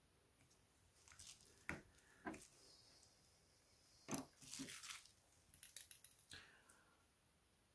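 Faint clicks and scrapes of tweezers and small plastic and metal parts of a Samsung Galaxy A72 being lifted apart: a few sharp clicks about two and four seconds in, a short scrape, then a run of small ticks near the end.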